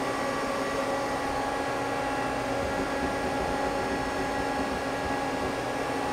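Steady hum of a Mazak CNC lathe standing at idle, with several steady tones held at one pitch over an even machine noise.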